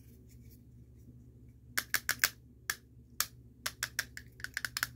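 Two plastic castanet toys, the Pedro and Nico castanets from Burger King's Rio 2 set, clacking shut as they are squeezed. Sharp clicks start about two seconds in, some single and some in quick clusters, and come thickest near the end.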